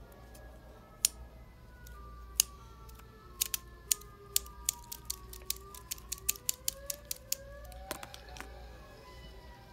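Sharp plastic clicks from a small object worked in the hands: two single loud clicks, then a quick run at about four a second that stops near the end. Faint gliding tones sound underneath.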